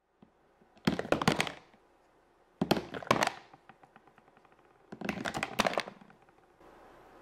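Three short bursts of rapid clicks and knocks, each lasting under a second, about two seconds apart, with near silence between.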